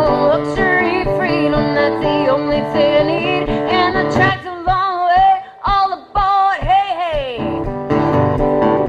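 Live band music with guitar. About halfway through, the backing drops away and a high, wavering melody with strong vibrato comes in short broken phrases, ending in a long downward slide, before the full band comes back in near the end.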